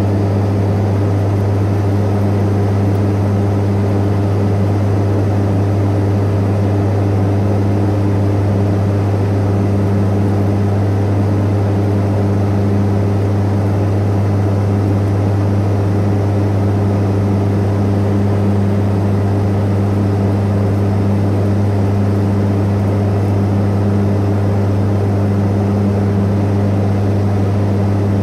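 Cockpit noise of a Beechcraft Super King Air 350 in flight: the twin turboprop engines and propellers keep up a loud, steady drone with a deep hum of constant pitch, over a wash of rushing noise.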